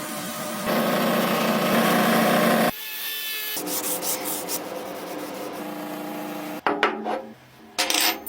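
Rough abrasive rubbing and scraping of a hand tool working a part, as in filing or sanding, heard in several short cut-together stretches with a quieter break about three seconds in. Two sharp knocks come near the end.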